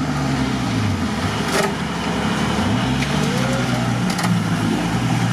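Nissan Patrol 4x4 engine running at low revs as it pulls through deep water, its note dropping about a second in and climbing again about three seconds in as the throttle changes.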